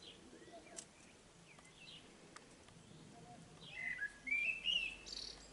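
A songbird chirping: a few faint short calls, then a louder run of high, sliding chirps and a warbled phrase about four seconds in.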